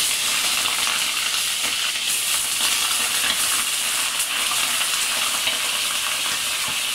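Raw chicken pieces sizzling in hot ghee in a steel pot as they are added, a steady dense hiss with fine crackling.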